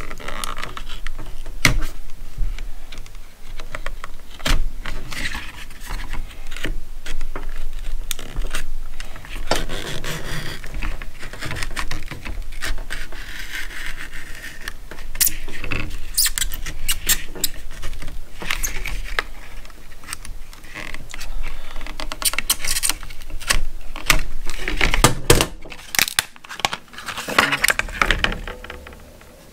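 A utility knife cutting and prying open a stiff plastic blister pack: a busy run of sharp clicks, crackles and scrapes as the plastic is slit and pulled away from the card.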